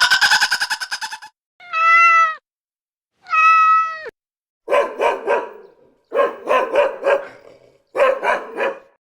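Two drawn-out cat meows, then three quick runs of short yaps, three or four in each run. Before them, a rapid fluttering trill ends about a second in. These are sound effects laid onto an edited video.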